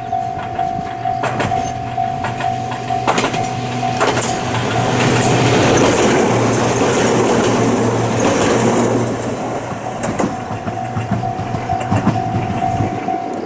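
Ohmi Railway electric train passing close by, with clicks from the wheels over rail joints; it is loudest about four to ten seconds in. A pulsing alarm tone rings before and after the pass and is drowned out while the train goes by.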